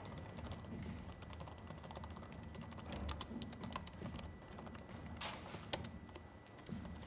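Faint, rapid typing on a laptop keyboard: a steady patter of light key clicks.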